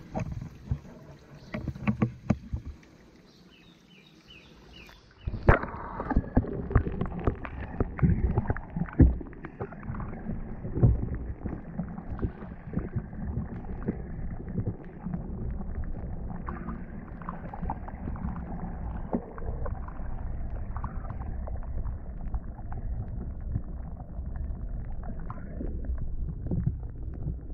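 Muffled underwater noise heard through a GoPro's waterproof housing: a steady low rumble of water moving around the camera, with frequent knocks and clicks, starting about five seconds in. Before that, a few clicks over a quiet background.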